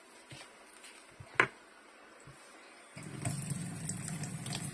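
A metal spoon scraping and clicking in a plastic bowl while stirring egg into flour, with one sharper knock. About three seconds in, a steady rush of water starts, water being run into a glass to add to the dough.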